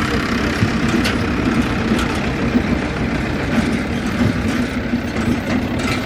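Tractor diesel engine running steadily with a low hum, with a few light clicks or knocks over it.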